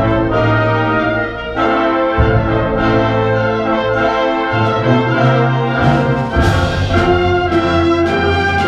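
Wind band playing live: brass-led held chords over sustained low notes, with percussion strokes coming in over the second half.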